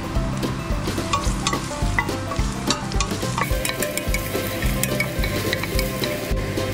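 Minced garlic sizzling and crackling in hot oil in a stainless steel pot, stirred with a wooden spoon, over background music with a steady beat.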